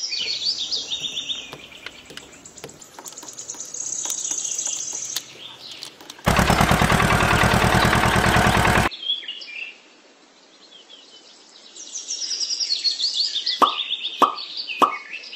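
Bird chirps over a soft background. About six seconds in, a loud, fast-pulsing rattling buzz sounds for about two and a half seconds. Near the end comes a run of short plops, each falling quickly in pitch, about two a second.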